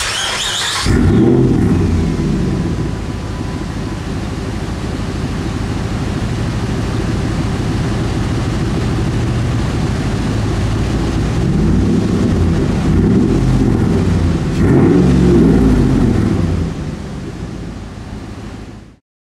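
2006 Dodge Ram 1500's 5.7-litre Hemi V8 exhaust through a Dynomax Race Bullet muffler, starting up: a brief crank, the engine catching with a flare of revs about a second in, then idling. A few quick throttle blips rise and fall past the middle before it settles and cuts off just before the end.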